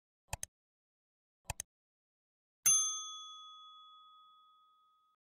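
Subscribe-reminder animation sound effect: two quick double mouse clicks about a second apart, then a single bell ding about two and a half seconds in that rings on and fades away.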